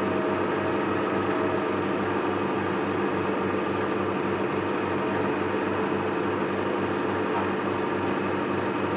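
Cinema film projector running, its mechanism giving a steady, fast, even clatter.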